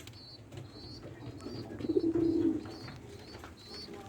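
Domestic pigeons cooing in a loft, one coo louder about two seconds in, with a quick run of short high chirps repeating throughout.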